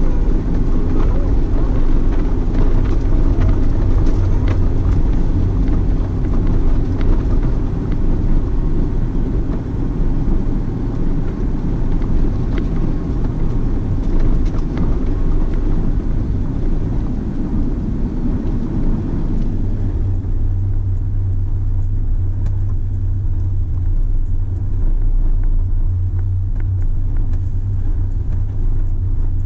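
4x4 vehicle driving along a rough dirt track, heard from inside the cabin: a steady low engine and tyre rumble with clicks and rattles from the bumpy ride, which turns duller and smoother about two-thirds of the way in.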